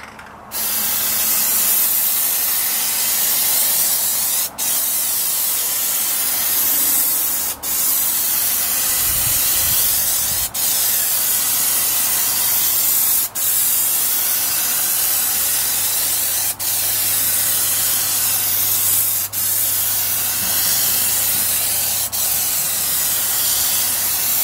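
Aerosol spray can hissing steadily as a coating is sprayed on in passes, with a short break about every three seconds between passes.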